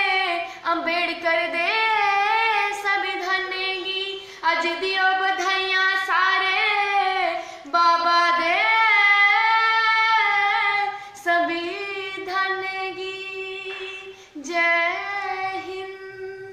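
A young woman singing a Dogri folk song solo, with long, bending held notes over a steady drone that carries on underneath. Her voice fades out near the end.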